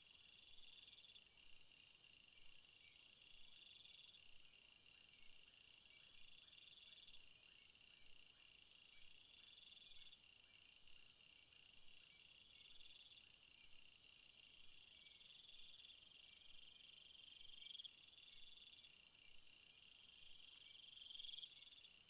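Faint forest ambience of insects chirping in layers: steady high pulsed trilling, with one louder trill that swells and fades roughly every three seconds.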